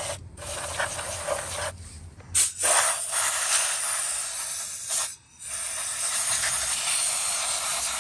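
Hissing blasts of aerosol electrical contact cleaner and compressed air from an air-gun nozzle, flushing gear oil out of the opened transfer case actuator and its micro switch. Three long blasts with short breaks between them.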